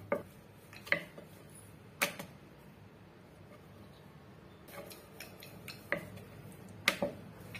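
Rolling pin knocking and rolling on a wooden board as a ball of puri dough is rolled out: about six sharp knocks, roughly a second apart, with a quieter stretch in the middle.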